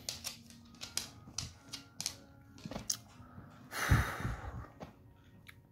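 Irregular clicks and taps of a hand-held phone being handled, fast and uneven over the first three seconds, then a short breathy rush of noise about four seconds in, over faint background music.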